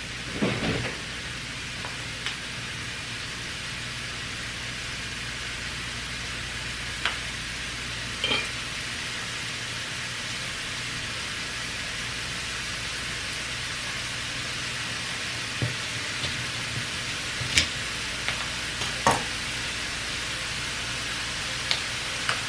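Mushrooms sizzling as they sauté in oil in a pan: a steady hiss. About eight sharp clinks of a utensil against the pan are scattered through it.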